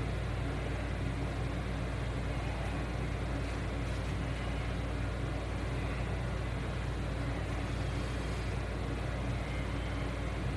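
A steady low mechanical hum with no change in level and no distinct knocks or clicks.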